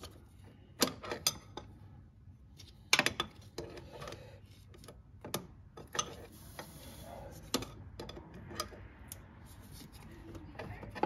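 Steel open-end wrenches clicking and clinking against the fuel filter's line nuts as they are held and tightened, in irregular taps: a cluster about a second in, another about three seconds in, then scattered lighter ones.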